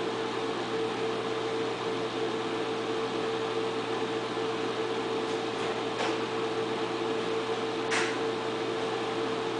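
Projector's cooling fan running: a steady whir with a constant hum, and two faint ticks about six and eight seconds in.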